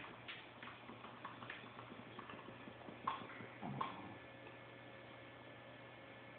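Sleeping dog snoring faintly: one short low snore about three and a half seconds in, after a run of light ticks and a single sharp click just after three seconds, over a steady low hum.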